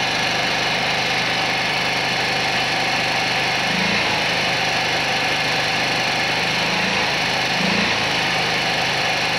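Motorcycle engine idling steadily while its alternator charges the battery that feeds an inverter.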